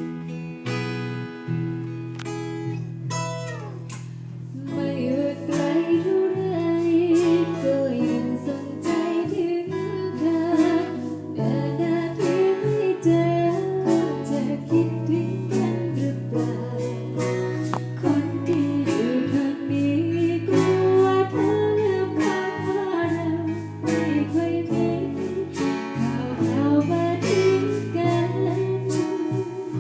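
A woman singing a Thai luk thung song over strummed guitar; the guitar plays alone for about the first four seconds before the voice comes in.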